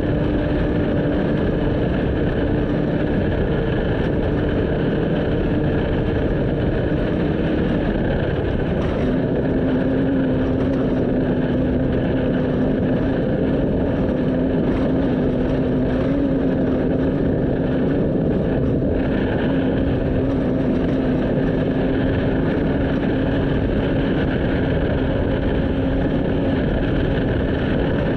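Off-road race vehicle engine running at a steady speed over loud road and wind noise. The engine's pitch drops a step about eight seconds in and then holds steady.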